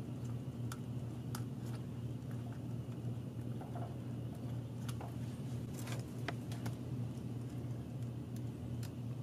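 Scattered small clicks and ticks of plastic and wire being handled as a crimped terminal is pushed into a door-harness wiring connector, over a steady low hum.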